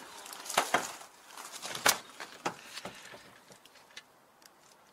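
A few irregular knocks and clicks of handling, one sharper than the rest about two seconds in, dying away after about three seconds.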